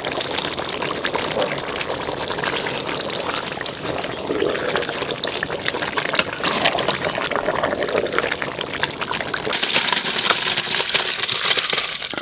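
Large pot of mutton curry bubbling and popping with many small crackles. Near the end a steady stream of liquid is poured into a pot of rice, a louder rushing hiss.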